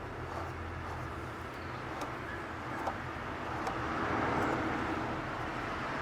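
Air-conditioner outdoor unit running: a steady low hum with fan noise that swells a little past the middle, and a few faint clicks.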